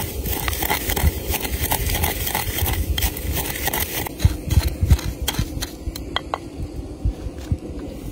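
Stone mortar and pestle crushing dry seeds: a steady run of knocks and gritty crunches as the pestle pounds and grinds, several strokes a second.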